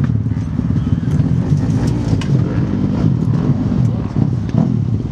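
Dirt bike engines running steadily, with a few light knocks on top.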